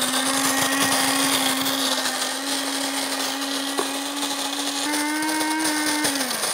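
Cuisinart electric burr grinder grinding coffee beans: a steady motor hum under a loud grinding rattle, its pitch rising slightly about five seconds in.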